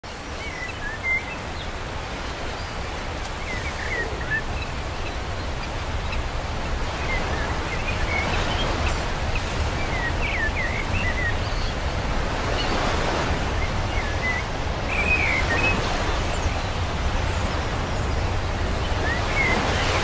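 Outdoor shoreline ambience: steady wind rumbling on the microphone, with many short bird chirps scattered throughout.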